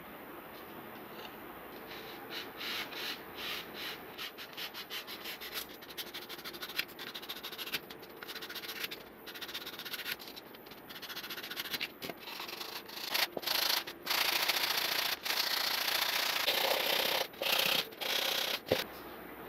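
Sandpaper on a sanding block rubbing down a white foam block: quick, short strokes a few times a second at first, then longer, louder back-and-forth strokes with brief pauses near the end.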